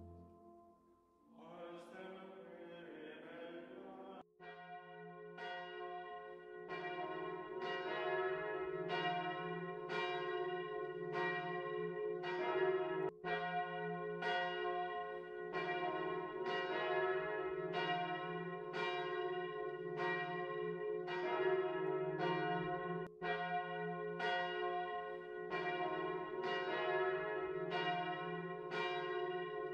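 Church bells ringing: several bells struck one after another in a steady, even run, their notes ringing on over one another. A sung chant fades out in the first second or so before the bells start.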